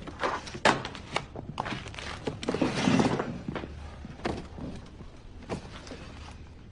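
A series of light knocks and thuds, with a louder noisy swell about three seconds in, then fading.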